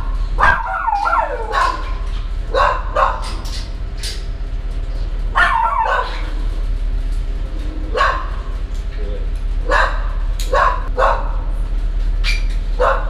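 A kennelled dog barking repeatedly at uneven intervals, with a rising-and-falling yelp about a second in. A steady low hum runs underneath.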